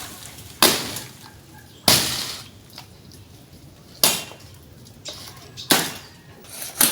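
Blade chopping into a banana plant's stem: five sharp hacks, irregularly spaced about one to two seconds apart, each with a short wet fade.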